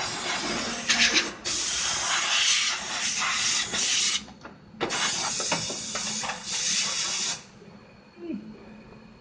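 Pressurised hissing in two long blasts: the first lasts about four seconds, and the second stops sharply about seven and a half seconds in.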